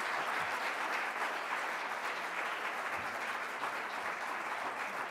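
An audience applauding steadily: many hands clapping together after a lecture.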